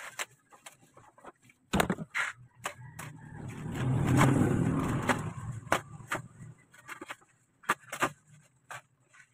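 Black plastic bubble wrap being cut and pulled off a package: crinkling and rustling with sharp crackles, swelling into a louder, fuller rustle around the middle as the wrap is tugged up.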